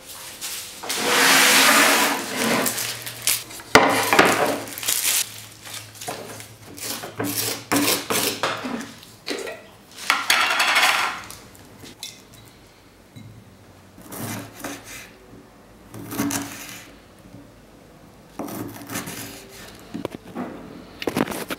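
Kitchen handling sounds of food being prepared on a wooden cutting board: plastic packaging rustling, a knife working on the board, and a jar and utensils being picked up and set down. They come in irregular bursts of a second or two with short pauses between.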